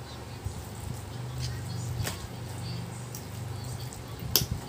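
Metal fork clinking against a plate while mixing and twirling saucy noodles, with a sharp click about two seconds in and a louder one near the end, over a low steady hum in the middle.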